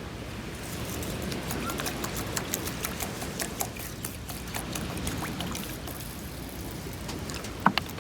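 Water pouring and trickling in an aluminium mess tin of rice, with many small clicks and a sharper knock near the end.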